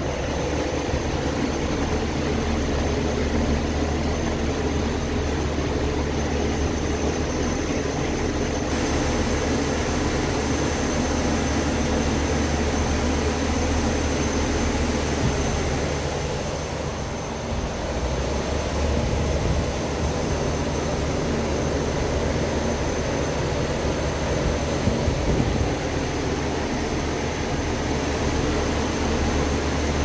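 Refrigeration unit of a Kia Bongo III refrigerator truck running, a steady mechanical drone with a low hum and a fan hiss, heard from inside the insulated cargo box. It dips briefly about halfway through, then carries on.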